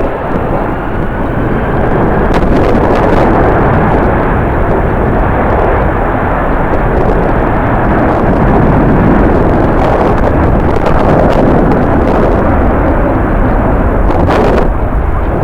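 Jet airliner engines running loud and steady as a plane moves on the airfield, a continuous rushing roar, with strong wind rumbling on the microphone.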